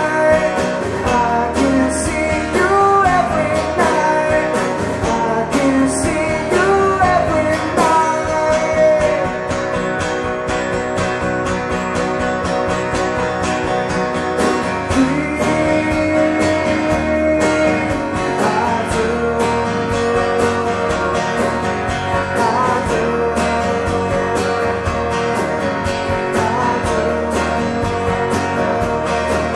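Live band playing a song: strummed acoustic guitar, electric bass and drums, with sung vocals over roughly the first eight seconds, after which the instruments carry on with steadier held notes.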